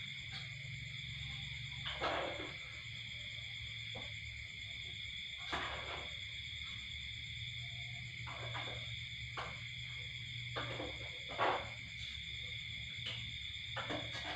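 Night insects chirring steadily, several shrill tones held without a break, over a low steady hum. Short sounds break in every couple of seconds.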